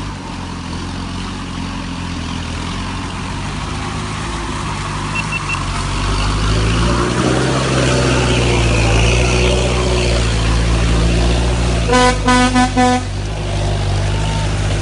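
Off-road 4x4 engine running under load in deep mud, working harder from about six seconds in. About twelve seconds in, a vehicle horn gives about four quick beeps.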